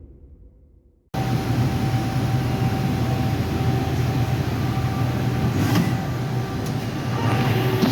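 Running industrial machinery, likely the CNC turning center under power: a steady hum with a constant whine over a machine-shop rumble. It cuts in suddenly about a second in as fading music ends, with a few faint clicks near the end.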